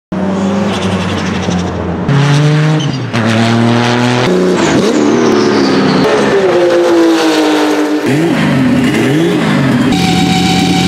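Turbocharged Porsche 911-based race cars' flat-six engines in a string of short clips: engines pulling hard with the pitch climbing and dropping through gear changes, a run of quick rises and falls in revs, and near the end a stationary car's engine held at a steady speed.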